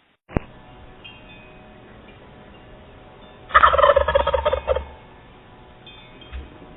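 Wild turkey gobbling once: one loud, fast rattling gobble a little over a second long, about halfway through. A short sharp click sounds just after the start.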